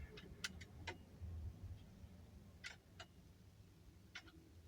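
Faint, scattered metallic clicks and clinks of a wrench working a wheel nut loose, about eight sharp clicks spread unevenly, with a low rumble in the first second and a half.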